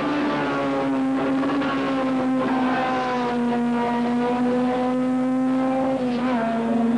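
Racing car engines running hard on the circuit, a continuous engine note that sags slowly in pitch and shifts again near the end.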